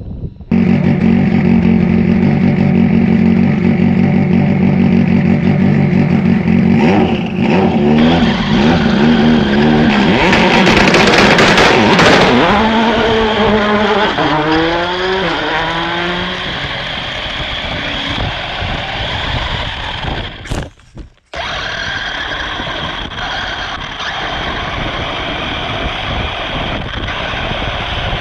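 Radio-controlled car's motor running hard, its pitch sweeping up and down repeatedly about halfway through, with the sound cutting out for a moment about three quarters of the way through.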